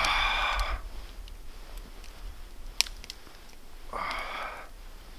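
A man breathing deeply and audibly through a shoulder mobility exercise, breath timed to the movement: two long breaths about four seconds apart. A single sharp click falls between them.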